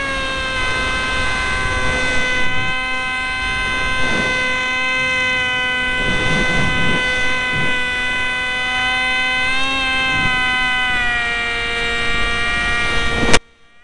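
Onboard sound of a foam RC F-22 jet's electric motor and propeller: a steady, loud whine whose pitch dips and wavers with the throttle, over wind rush on the airframe. About 13 seconds in, a sharp smack as the plane hits the ground, and the motor cuts off at once.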